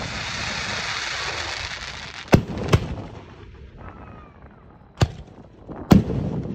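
Aerial firework shells: a fizzing hiss for the first couple of seconds, then sharp bursting bangs, two close together about two and a half seconds in and two more about a second apart near the end.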